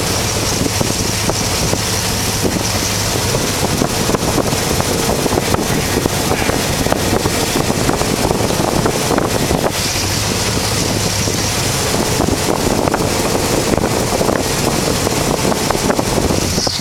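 Dodge pickup truck on the move: steady engine and road noise with wind rushing over the microphone, and a low steady hum in the first few seconds and again about two-thirds of the way through.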